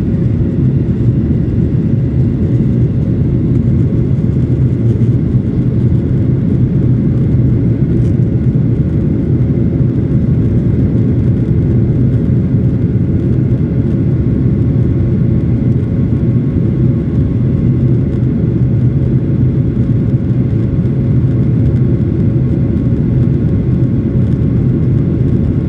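Jet airliner taking off: engines and rushing air make a loud, steady low rumble with a steady hum through it.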